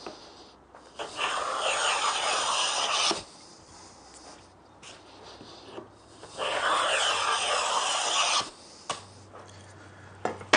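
Two long cutting strokes of a wooden snipe bill moulding plane drawn along a board, each a rasping hiss of about two seconds, starting the V-groove for a cove. A couple of light knocks near the end.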